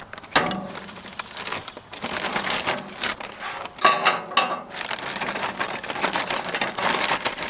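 Rustling, crinkling and irregular knocks of fatwood kindling sticks being handled and taken out of their packaging, with a sharp knock just after the start.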